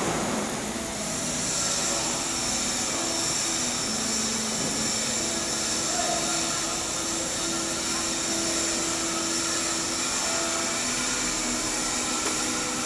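Stick-welding arc from an E7018 electrode burning steadily during a cap pass on a header, a continuous even hiss that settles in about a second in. A faint low hum of machinery runs underneath.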